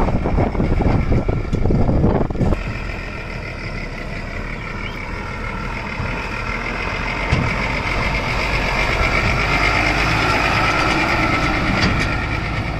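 Tipper truck's diesel engine running, with wind buffeting the microphone for the first couple of seconds. From about two and a half seconds in, the engine runs steadily under a continuous high-pitched reversing alarm.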